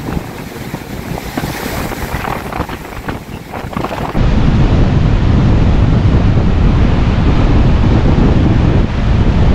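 Strong wind buffeting the microphone over the rush of surf breaking on the beach. About four seconds in it becomes much louder and heavier, a deep, steady wind roar.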